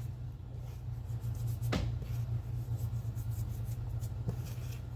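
Faint rustling and rubbing as flour is sprinkled and spread on a table by hand, over a low steady hum, with one sharp click a little under two seconds in.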